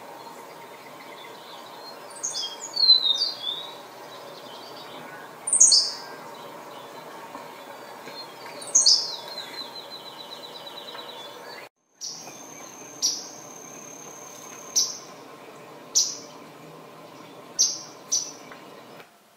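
Henslow's sparrow singing its short, high 'free-lick' song three times, about three seconds apart, over a faint buzzy trill and recording hiss. After a break about twelve seconds in, a swamp sparrow recording follows, with single sharp high notes every second or two and a thin steady high tone for the first few seconds.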